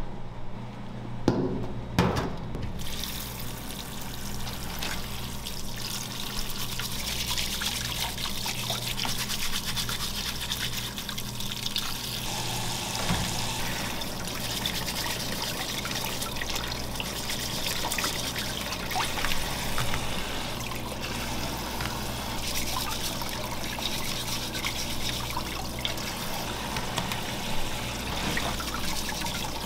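Kitchen tap running steadily into a stainless-steel bowl while raw crabs are scrubbed with a brush under the stream, with small clicks of shell and brush. Two sharp knocks about one and two seconds in, before the water starts.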